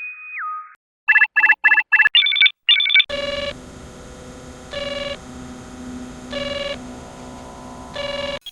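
Star Trek electronic sound effects played back to back. The tail of a two-tone chirp is followed by a quick run of five short computer beeps and two higher double beeps. Then comes a steady electronic drone with a brighter ringing tone that pulses in about every second and a half.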